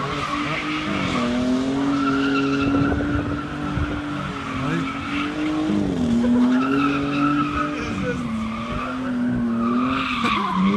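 Straight-piped 4.0 L V6 of a 2002 Ford Ranger held at high revs through burnout donuts, its note dipping and climbing back every few seconds. Rear tyres squeal against the pavement, spun together by a welded differential.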